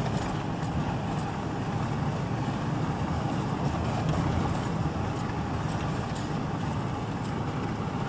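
An old Dodge pickup truck driving at a steady speed: steady engine and road noise heard from inside the cab, with a few faint clicks.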